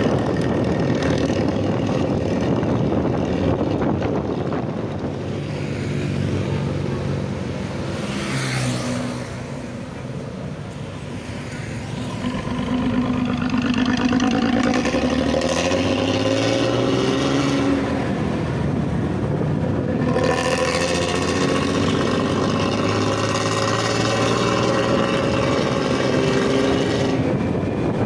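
Bus engine running through a 'ngorok' snoring exhaust. Its note softens about ten seconds in, then climbs as the engine revs up again, and stays loud and steady to the end.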